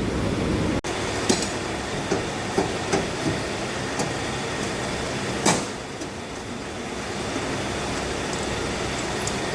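Workshop noise in a car body repair shop: a steady background hum with about six short sharp knocks of tools or panels, the loudest about five and a half seconds in.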